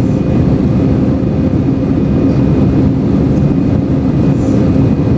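Airbus A321-200 airliner cabin noise: a steady, loud low rumble of the jet engines and airflow with a constant hum.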